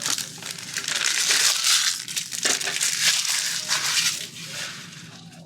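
Plastic trading-card pack wrappers being crinkled and crumpled by hand, a dense crackling that runs about four and a half seconds and fades near the end.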